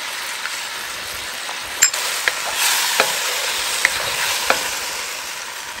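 Seafood sizzling in a hot pan as it is stir-fried with a wooden spatula: a steady frying hiss, with about five sharp knocks of the spatula against the pan in the middle of the stretch.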